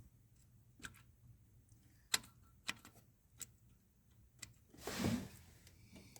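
Scattered light metal clicks of rocker arms and their bolts being set in place by hand on a cylinder head, with a brief scraping rattle about five seconds in.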